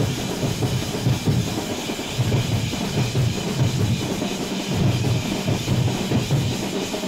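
Jamab drum ensemble: many drummers beating Tamil folk drums such as the thappu (parai) together, with deep bass-drum strokes repeating in a steady rhythm under the clatter of the lighter beats.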